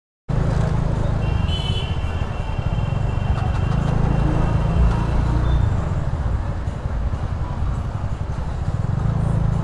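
Motor scooter running along a city road, a steady low rumble of engine and wind.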